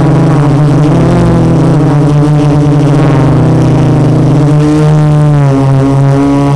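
Multistar 2212 920kv brushless motors and 12x4.2 carbon-fibre propellers of a 450-size quadcopter humming in flight, heard through its onboard camera: a steady pitched drone with wavering overtones that shifts in pitch and steadies about four and a half seconds in.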